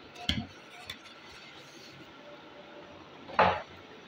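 Polystyrene foam packing insert being handled and lifted out of a cardboard box: a short knock about a quarter second in, a small click near one second, and a louder brief rub of foam and cardboard a little after three seconds in.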